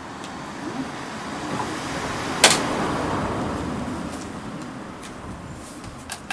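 A road vehicle passing by, its noise swelling and then fading, with one sharp click about two and a half seconds in.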